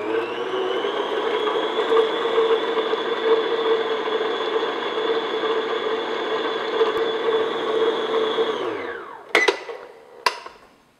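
Electric stand mixer beating room-temperature butter with its flat beater in a stainless steel bowl, the motor running steadily with a whine until it winds down about eight and a half seconds in. Two sharp clicks follow as the mixer head is raised.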